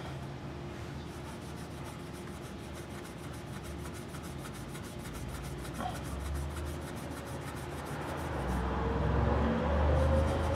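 Steel wool scrubbing corroded zinc-galvanized steel motorcycle wheel spokes: a rapid, steady rasping rub of strokes along the spoke. A low rumble swells in over the last couple of seconds.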